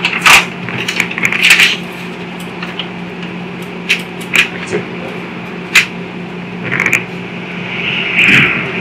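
Brown paper bag rustling and crackling in irregular bursts, with sharp clicks, as small items are taken out of it and handled; a longer rustle comes near the end. A steady low hum runs underneath.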